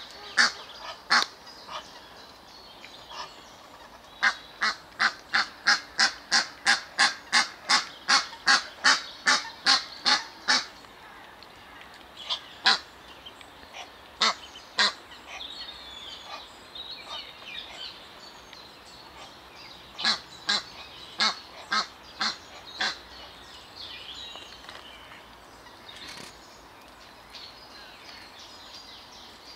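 A goose honking over and over, a fast run of two or three loud honks a second for several seconds, then scattered single honks and a few more in quick succession later on.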